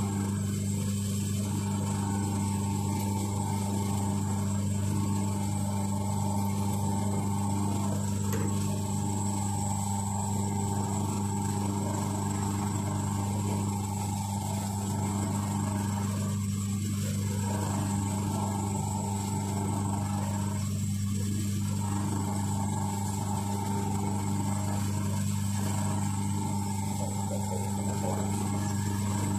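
Electric motor of a bowling ball spinner machine running steadily with a low hum, turning the ball while a cotton towel holds polish against it.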